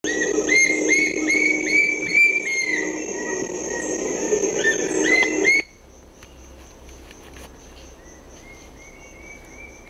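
A series of loud upslurred whistles, about two a second, the song of a Brown-banded Puffbird, over a steady high insect drone. A little over halfway through the sound cuts off abruptly to a much quieter background, where fainter whistles and the insect drone go on.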